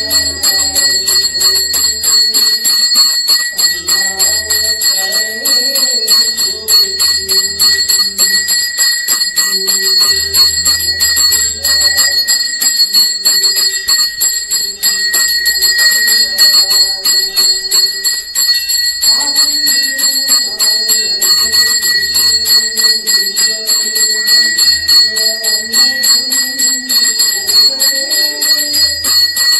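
Brass puja hand bell rung rapidly and without pause through a lamp arati, its ringing steady, with music underneath.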